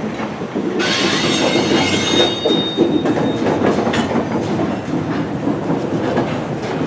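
Freight cars rolling past, their wheels clattering over the rail joints, with a brief high wheel squeal about two seconds in. The cars are extremely loud, probably because of rain and rust.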